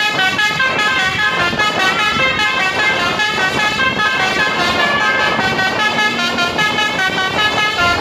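Basuri telolet multi-tone air horn on a tour bus playing a fast tune without a break: short notes stepping up and down, several tones sounding at once.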